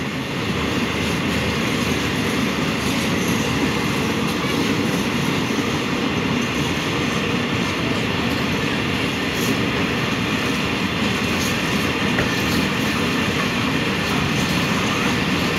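Freight train's tank wagons and covered wagons rolling past at speed: a steady rumble of steel wheels on the rails, with occasional faint clicks.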